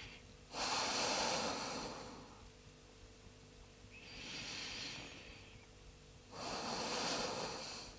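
A person breathing slowly and deeply while holding a stretch. There are three long breaths about three seconds apart, and the middle one is fainter.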